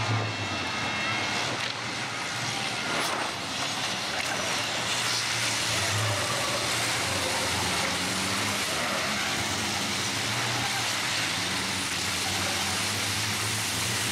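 A pack of diesel racing trucks passing at speed: a steady, loud mix of engine and road noise, with their low engine drone underneath.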